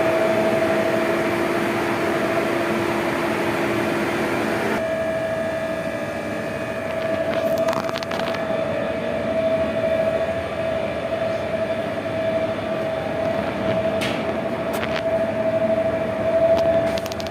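Steady drone of running ship's engine-room machinery with a constant hum tone. A lower hum drops out about five seconds in, and a few short metallic clicks or knocks sound later on.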